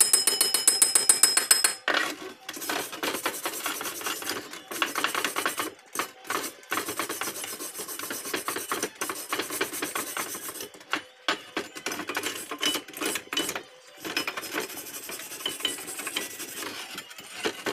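Wire brush scrubbing a steel weld in runs of fast back-and-forth strokes with short pauses, cleaning slag off flux-core welds.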